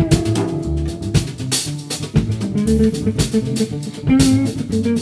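Jazz trio of electric guitar, double bass and drum kit playing together, guitar notes over the bass line with regular drum and cymbal strokes.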